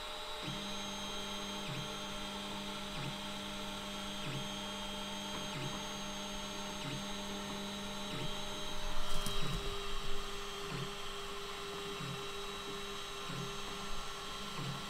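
Stepper motors of a Tronxy X5SA 3D printer whining through a run of repeated jog moves set from the touchscreen, each move about a second long with a short break between, about a dozen in all. A louder burst of noise with a sharp click comes about nine seconds in.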